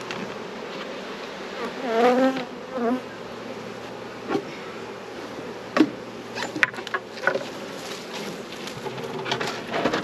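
Honeybees buzzing around an open hive, the buzz swelling louder in two short bursts around two and three seconds in. Several sharp knocks and clunks through the middle come from the hive boxes and the clearer board being handled.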